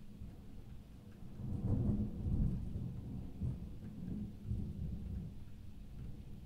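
Deep rolling thunder rumble over a faint steady low drone, swelling about two seconds in.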